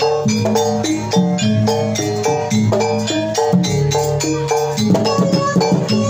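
Jaranan gamelan music: metal-keyed percussion playing a quick repeating melody over low held gong tones, with steady drum strokes.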